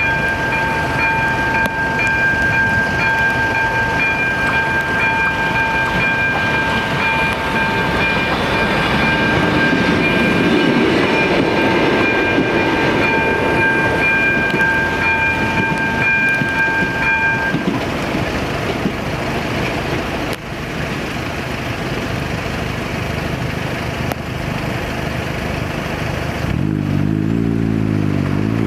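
AŽD ZV-02 electronic level-crossing bell ringing a steady tone while a ČD Class 814 Regionova diesel railcar runs over the crossing, the train loudest around ten to fifteen seconds in. The bell stops about two thirds of the way through. Near the end a road vehicle's engine revs up as traffic moves off.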